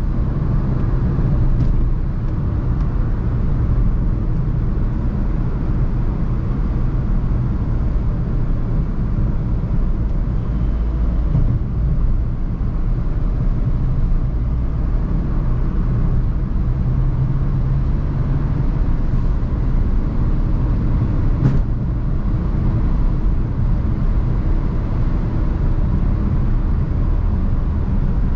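Maruti Suzuki Swift Dzire driving on the road: a steady low rumble of engine and tyre noise. A single sharp click sounds about 21 seconds in.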